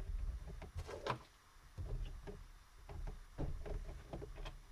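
Faint, scattered clicks and ticks of a screwdriver loosening the screws of a laptop's plastic bottom access hatch.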